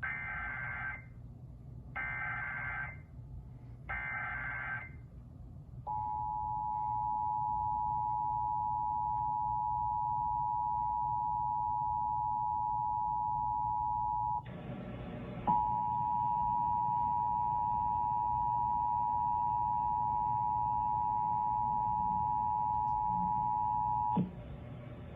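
Emergency Alert System tones: three one-second bursts of screechy digital SAME header data, two seconds apart. Then comes the steady two-tone EAS attention signal (853 and 960 Hz), broken once by a second-long burst of noise about fifteen seconds in and resuming until just before the end.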